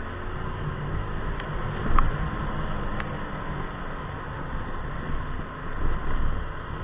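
Motor scooter riding through traffic: steady engine, road and wind rumble, with a sharp tick about two seconds in and another about a second later.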